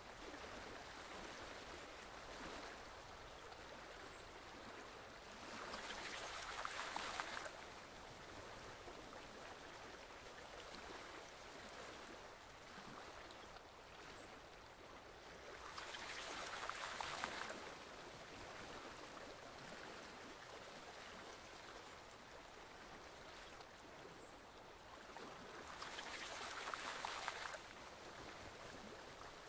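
Forest stream flowing steadily over rocks, with a louder rush of water swelling up for a second or two about every ten seconds, three times.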